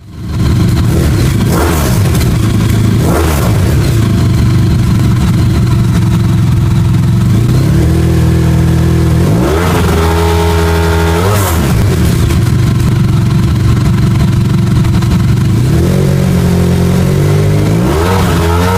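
Honda VFR1200F's V4 engine running through a GRmoto aftermarket exhaust: steady idle with two quick throttle blips in the first few seconds, a longer rev held for about two seconds around the middle, and another rev near the end.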